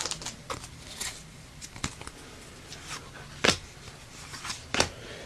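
Soft clicks and snaps of Yu-Gi-Oh trading cards being handled and slid apart, freshly out of a torn booster pack, with two sharper clicks in the second half.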